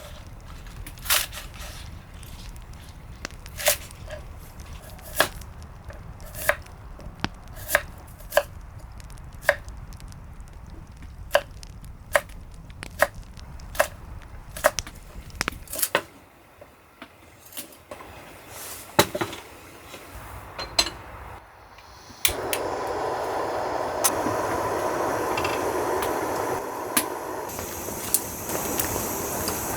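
Knife chopping on a wooden cutting board in separate strokes about one a second, then a pause with a few knocks. About 22 seconds in, a steady hiss starts and continues.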